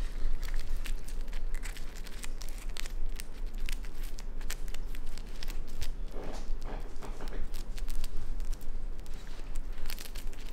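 Raccoon chewing a hard-shelled insect, a dense run of sharp crackling crunches as the shell breaks.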